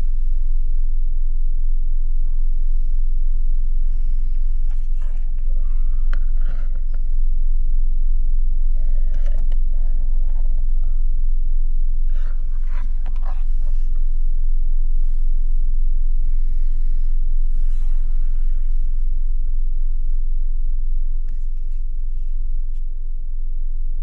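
Steady low rumble of a Toyota Hiace Commuter's 2.7-litre petrol four-cylinder engine idling, heard from inside the cabin, with a few faint clicks and rustles.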